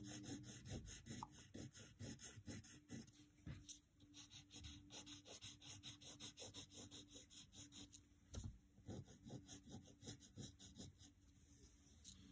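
Pencil lead scratching on paper in quick repeated strokes, going over a drawn line again and again, faint; the strokes thin out near the end.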